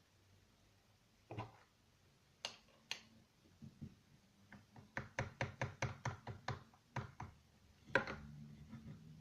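Light taps and knocks of a hard object: a few single taps, then a quick run of about a dozen at roughly five a second, and one louder knock near the end.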